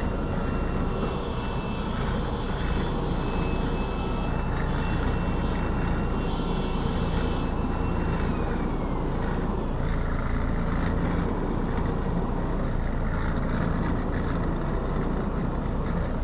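Scania 124L 420's straight-six diesel running at low revs as the truck creeps along, heard from inside the cab. A thin high whine rides over it and drops in pitch about eight seconds in, and there are patches of hiss in the first half.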